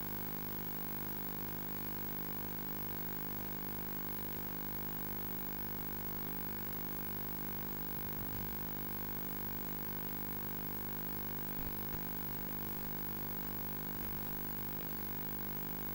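Steady electronic hum and hiss from a faulty audio track: many fixed tones that never change, with a couple of faint knocks about halfway and two-thirds of the way through.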